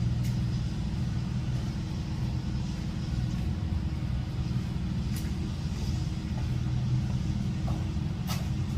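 An engine running steadily at a constant speed, a low hum with a few faint clicks over it.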